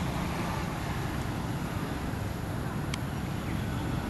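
Steady low rumble of outdoor background noise with a fainter hiss over it, and one short tick about three seconds in.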